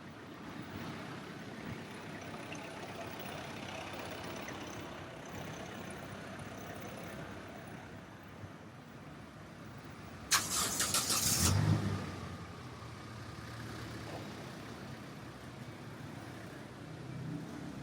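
Street traffic noise, with a loud, rasping burst from a nearby motor vehicle about ten seconds in, followed by its engine running for a couple of seconds.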